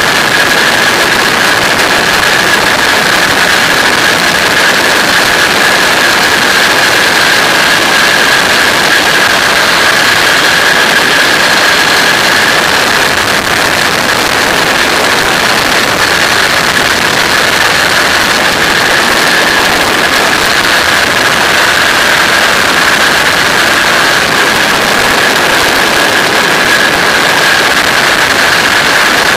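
Flex-wing microlight trike in cruising flight: the engine drones steadily under loud rushing airflow on the microphone, with a steady high tone riding on top.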